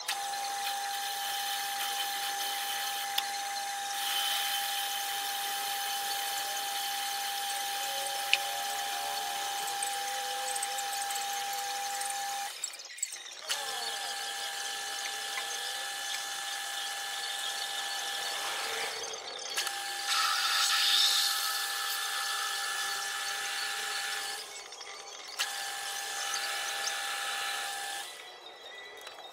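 Metal lathe running with a steady whine, turning a steel part. The sound drops out briefly a few times and grows louder for a couple of seconds about two-thirds of the way through.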